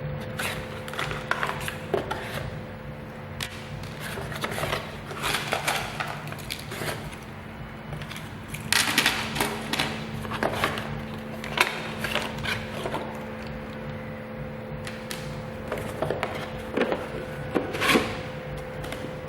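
Irregular clicks and knocks of small objects being handled, over a steady low hum.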